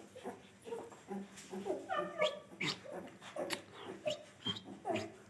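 A dog whimpering and whining in a string of short, high calls, several sliding down in pitch.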